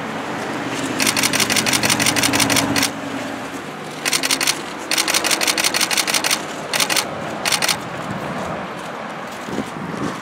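Several DSLR camera shutters firing in continuous bursts, rapid clicks about ten a second in volleys of one to two seconds, over a steady low hum.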